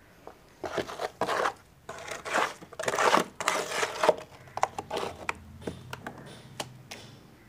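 Handfuls of wet red-soil mud squelching and slapping as they are scooped by hand from a plastic basin and dropped into a plastic crate. The sound is busiest in the first half, with quieter scattered wet clicks later.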